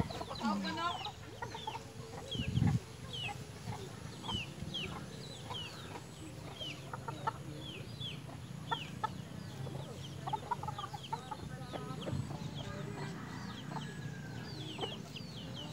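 Chicks peeping over and over in short, high, falling peeps, with scattered low clucks from the grown chickens. There is one dull thump a couple of seconds in.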